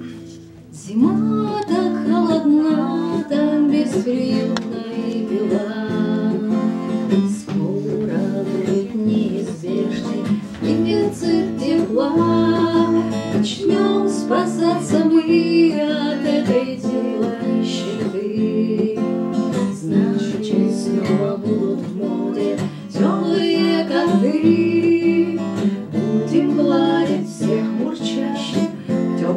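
Acoustic guitar strummed, with a woman singing along, starting about a second in.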